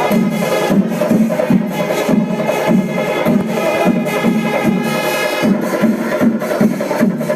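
Music with a steady beat of about two strokes a second under a sustained melodic line.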